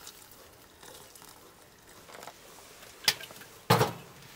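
Hot water poured from a small metal pot onto dry oatmeal in a cup, a soft faint splashing. About three seconds in comes a sharp click, then a louder metal knock near the end as the pot is handled and set down.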